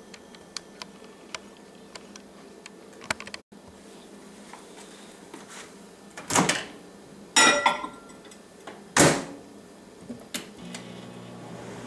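A glass Pyrex measuring cup being set into a MicroFridge microwave and the door shut: three loud knocks over a few seconds, then a few clicks as the timer dial is turned. Near the end the microwave starts running with a steady low hum.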